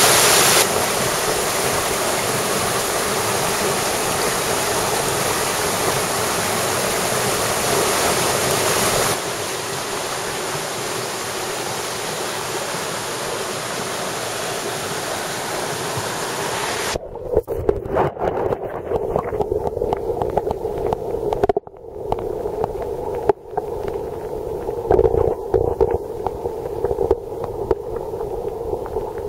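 Mountain stream rushing steadily. Well past halfway the sound changes abruptly to a closer, uneven gurgling with a couple of brief gaps.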